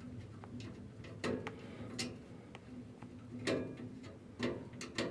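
Irregular light clicks and sharp metallic taps of a tool and the flame sensor's hex-head screw being handled and refitted on a furnace, about five in all, over a faint steady hum.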